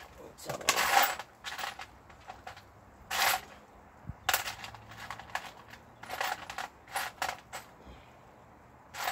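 Small metal parts clinking and rattling as they are rummaged through: an irregular string of short, sharp clinks with a brief metallic ring.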